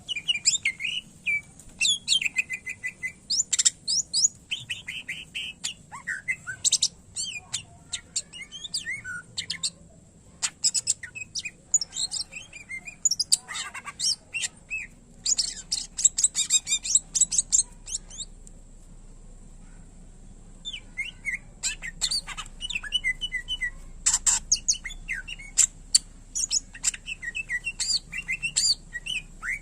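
Cucak ijo (green leafbird) singing a fast, varied song of chirps, trills and whistled sweeps, with phrases copied from other birds' songs. It breaks off for about two seconds just past the middle, then carries on.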